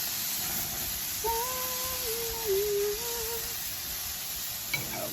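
Marinade-basted chicken breasts sizzling steadily on a grill. About a second in, a woman hums a few held notes for about two seconds.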